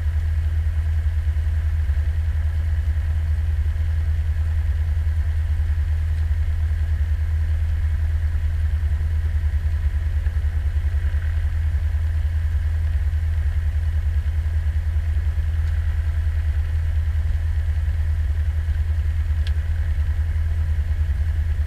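Cessna 172's piston engine and propeller idling on the ground, a steady low drone with a fast even pulse, heard inside the cabin.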